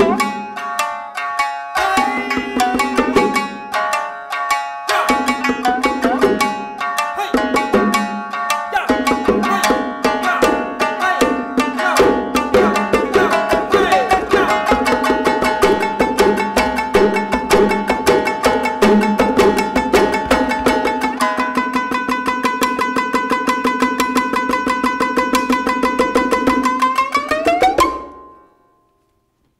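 Shamisen playing a fast plucked passage, traded with hand strokes on bongos. About two-thirds through, the shamisen settles into a rapid tremolo on one note. Near the end the tremolo slides upward and cuts off suddenly.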